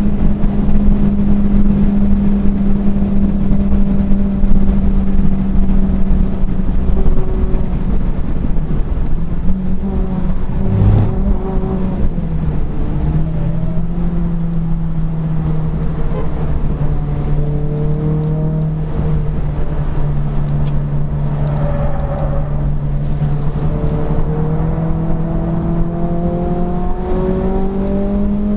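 Renault Clio 3 RS's 2.0-litre four-cylinder engine at speed, heard from inside the cabin with road and wind noise. Its pitch holds steady, drops about twelve seconds in, and climbs again near the end as the car accelerates. There is a single thump about eleven seconds in.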